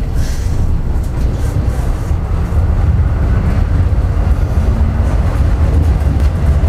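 Tram running along street track, heard from on board: a steady low rumble.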